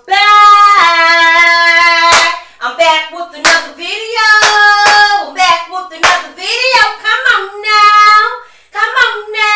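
A woman singing a high-pitched intro chant with long held notes, punctuated by sharp hand claps between phrases.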